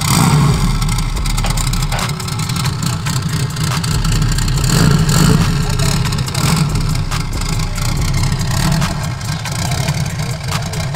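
Sand rail's rear-mounted engine running and revving in a few surges as the buggy is driven down the trailer ramps onto the sand.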